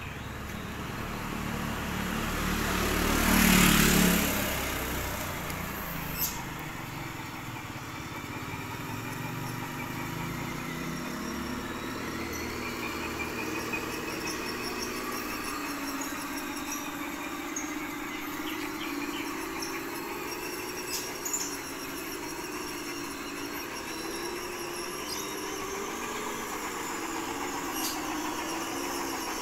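RC truck running with a simulated diesel engine sound from its ESP32 sound module, a steady engine-like drone that rises and falls in pitch as the truck is driven. A louder swell of vehicle noise peaks about three to four seconds in.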